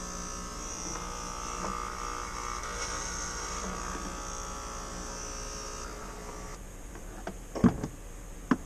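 Electric hair clippers buzzing steadily while cutting hair, switched off about six seconds in. Two sharp knocks follow near the end, the first the loudest sound here.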